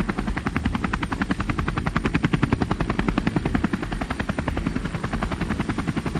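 Army helicopter flying at a steady speed: a fast, even beat of rotor-blade pulses over a steady engine and turbine rumble.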